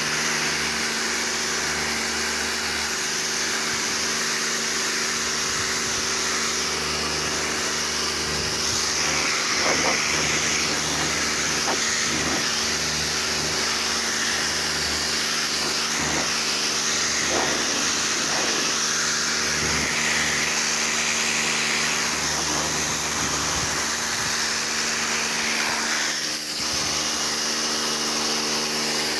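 Pressure washer running steadily, its motor humming under the loud hiss of the water jet spraying onto a car, with a brief drop about 26 seconds in.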